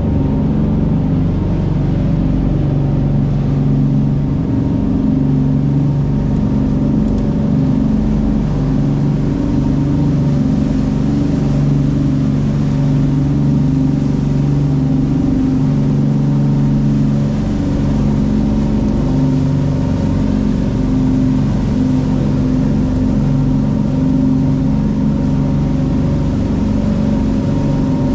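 A boat's engine running at a steady speed, an even low hum that does not change.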